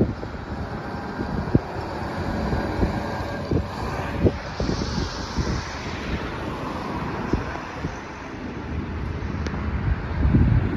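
Road traffic passing, a CFA fire tanker among it, with wind buffeting the microphone in repeated low thumps. A tyre hiss swells and fades about halfway through.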